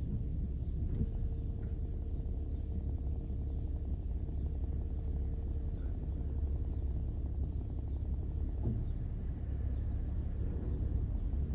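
Steady low rumble of a car driving, with a faint steady tone for a few seconds early on and a series of faint, short high chirps.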